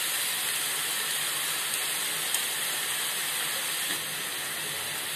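Potato cubes, onion and tomato sizzling in oil in a frying pan: a steady hiss that drops slightly about four seconds in.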